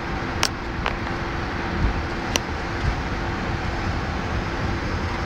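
Cockpit noise of a Boeing 767 taxiing: a steady rushing with a faint steady hum underneath, and a few sharp clicks in the first half.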